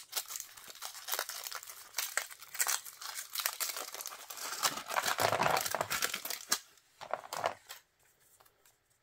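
Thin foil wrapper crinkling and tearing as it is peeled off a chocolate egg, then the chocolate shell cracked apart to free the plastic toy capsule inside, followed by a few light clicks.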